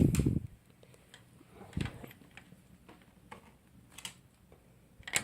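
Small dog at its food and water bowls: irregular light clicks and taps, with a low thud at the start, another about two seconds in, and a sharper click near the end.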